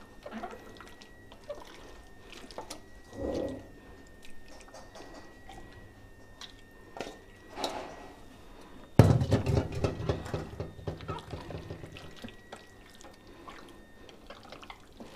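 Hands mixing raw chicken pieces into a wet green marinade paste in a glass bowl: soft squelching and wet smacks, with a louder stretch of handling that starts sharply about nine seconds in.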